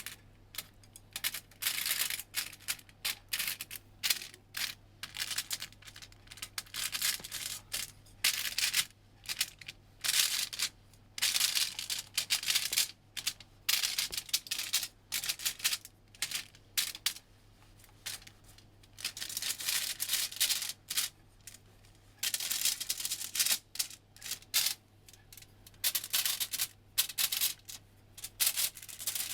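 Kitchen food-preparation handling noises: irregular short rustles, scrapes and clicks, several a second, with brief pauses, over a faint steady low hum.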